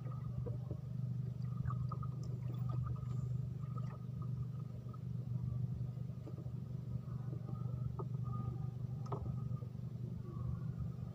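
Steady low hum of a boat engine running, with a few faint ticks over it.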